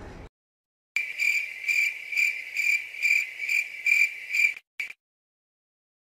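Cricket chirping sound effect: a steady high chirp pulsing about twice a second, starting abruptly about a second in and cutting off just before the five-second mark, with one short chirp after it.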